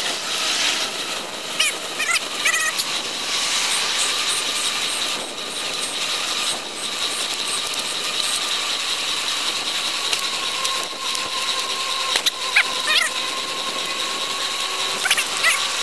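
Bicycle rolling along, heard through a camera taped to it: steady tyre and wind hiss with a faint steady whine and ratcheting mechanical clicking, and a few sharper clicks scattered through.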